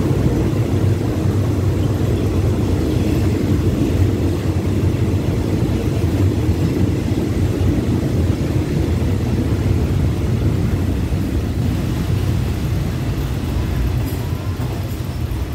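Thai ordinary passenger train rolling along a station platform, heard from a carriage window: a steady, loud low rumble of wheels and running gear. It eases a little near the end as the train slows to stop.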